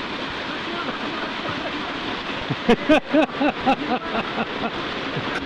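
Steady rushing of whitewater through a river rapid. About halfway through, a person's voice rises briefly over it in a short burst of quick, bending sounds, louder than the water.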